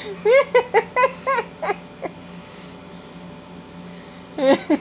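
Baby's short, high vocal squeals and giggly babbles, about six in quick succession in the first two seconds, then another short burst near the end.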